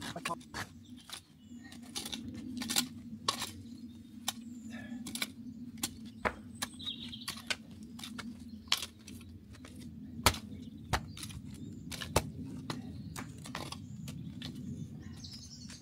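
Irregular sharp clicks and knocks, one to three a second, over a steady low hum.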